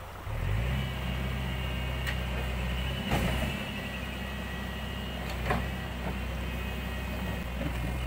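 JCB 3DX backhoe loader's four-cylinder diesel engine rising from idle to higher revs about a third of a second in and then running steadily, with a high whine over it. A few short knocks come through, the loudest about three seconds in.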